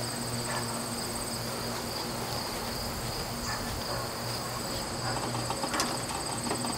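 Steady trilling of insects, like crickets, over a low steady hum, with a couple of faint clicks near the end.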